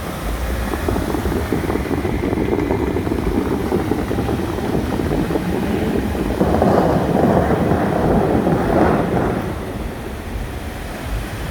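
Bellagio fountain water jets rushing and spray splashing down, a steady noisy rush with wind buffeting the microphone. It swells louder about six seconds in, then eases off near the end.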